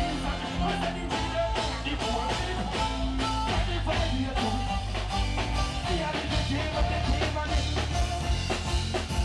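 Live reggae band music: a drum kit keeping a steady beat over heavy bass, with a melody line on top.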